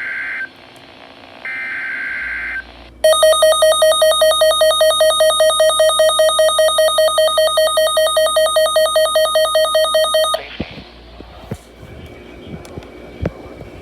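NOAA Weather Radio Emergency Alert System signal. It opens with two short bursts of screeching digital SAME header data, then about seven seconds of the loud, harsh, rapidly pulsing attention tone. The tone cuts off abruptly to faint radio hiss with a few clicks.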